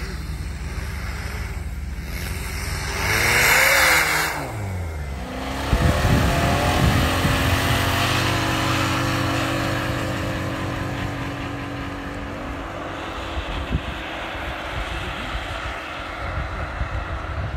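4x4 SUV engine revving up and down, then pulling hard under load through deep snow with its tyres churning. The sound surges suddenly about six seconds in and then fades as the vehicle moves away.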